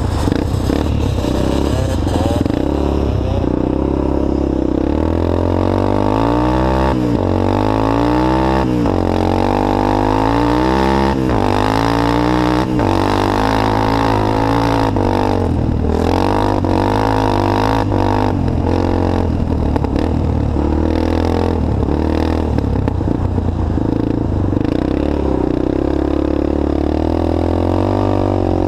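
Onboard sound of an off-road motorbike's engine under hard acceleration, its pitch climbing again and again as it revs up through the gears, then running steadily at speed.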